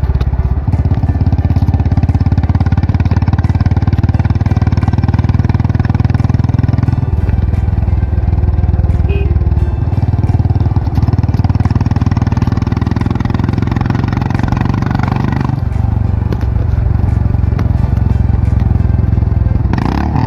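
Jawa motorcycle's single-cylinder engine running steadily. Its sound changes abruptly a few times, about a third of the way in and again about three quarters through.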